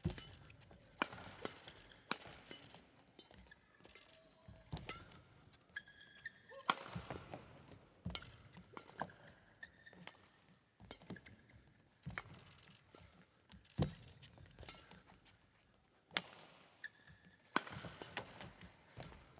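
Badminton rally on an indoor court: sharp racket strikes on the shuttlecock at irregular intervals, with short squeaks of players' shoes on the court floor.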